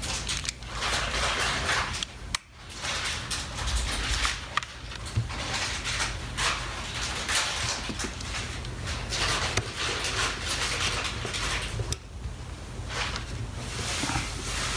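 Hands working small plastic shaver parts and a replacement battery: uneven rustling and scraping with scattered light clicks, over a steady low hum.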